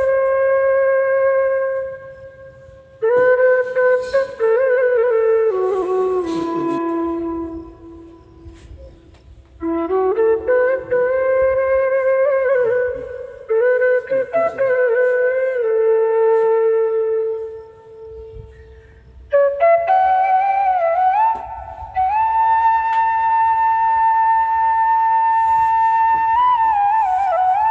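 Background music: a slow flute melody in phrases of long held notes with small bends and slides, separated by short pauses.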